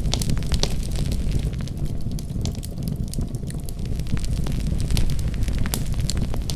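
Fire in a fireplace crackling, with many sharp, irregular pops over a low, steady rumble. The pops thin out for a moment in the middle.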